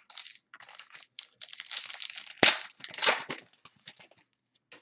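A basketball trading-card pack's wrapper being torn open and crinkled, with a sharp rip about two and a half seconds in and a few faint rustles near the end.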